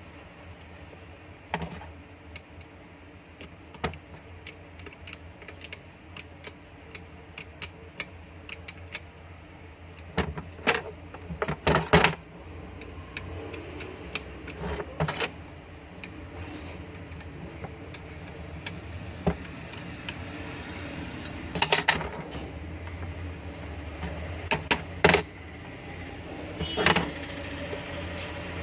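Metal tools and motor parts clicking, clinking and knocking as a small exhaust fan motor's through-bolts are fitted, over a steady low hum. The clicks come in scattered clusters, with the sharpest about halfway through and a few more near the end.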